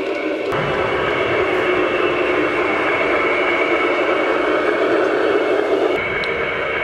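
Garden-scale model Rhaetian Railway train, an electric locomotive hauling coaches, running along outdoor track: a steady rolling rumble with a thin constant whine. The sound changes abruptly about half a second in and again near the end.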